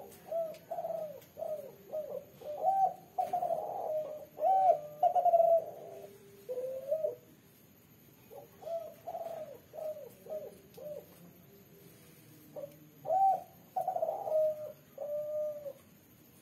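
Female spotted dove (derkuku) cooing in three bouts, each a run of short coos ending in a longer drawn-out note: the multi-note "kuk 3" call that keepers prize.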